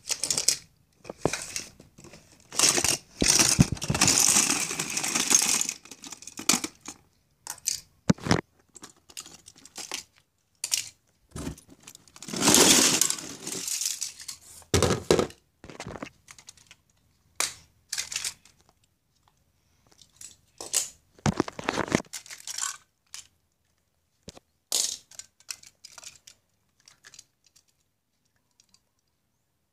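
Die-cast toy cars being handled and moved about on a wooden floor: irregular clacks and knocks with two longer stretches of rustling and scraping, thinning out to near quiet towards the end.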